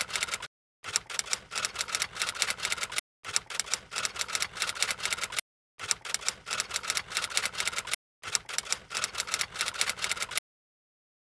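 Typewriter typing sound effect: rapid key clicks in runs of about two seconds with brief pauses between them, stopping about ten seconds in.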